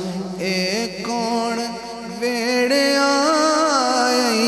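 A man singing a Punjabi naat into a microphone, holding long, wavering notes that slide from pitch to pitch.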